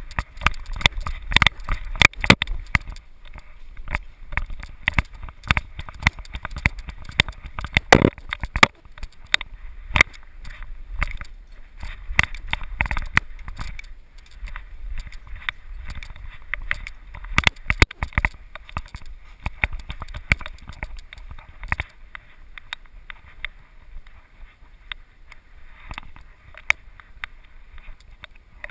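Irregular knocks, clicks and rattles from an action camera strapped to a dog's harness, jostled with every step as the dog moves down wooden porch steps and out onto grass. The knocking is dense at first and thins out after about twenty seconds.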